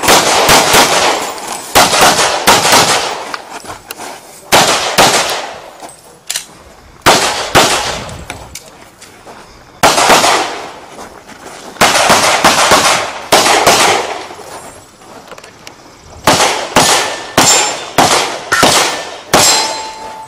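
Semi-automatic pistol shots fired in rapid pairs on a stage, with short pauses between strings as the shooter moves. Each shot is sharp and loud with a brief echo.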